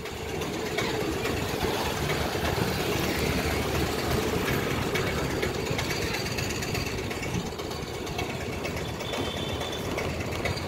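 A vehicle's engine running steadily while under way, heard from on board with a steady rumble and road noise.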